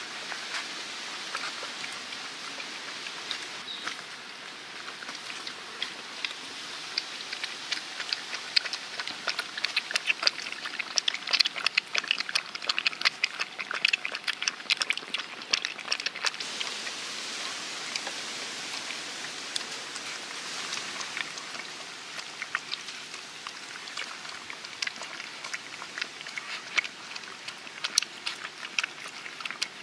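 Several puppies lapping and eating from a shallow trough: many quick wet clicks and smacks, few at first and then dense through the rest, over a steady background hiss.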